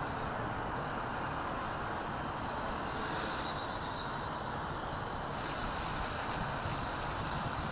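A WLtoys V950 200-size electric RC helicopter in flight some distance off: a steady, even whir from its rotors and brushless main motor, with no change in level.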